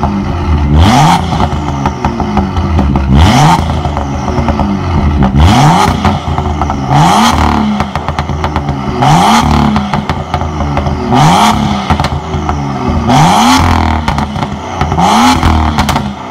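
BMW M2's N55 3.0-litre turbocharged straight-six, through a turboback exhaust with catalytic downpipe and its exhaust valves open, being free-revved from idle in repeated blips about every two seconds, each rising quickly and dropping back.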